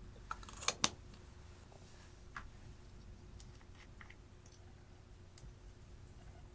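Slime and crushed eyeshadow being worked by hand: a quick cluster of sharp, crackly clicks just under a second in, then faint scattered clicks.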